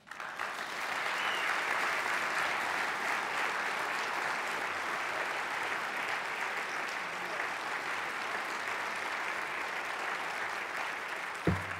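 Audience applauding steadily, with a single low thump near the end.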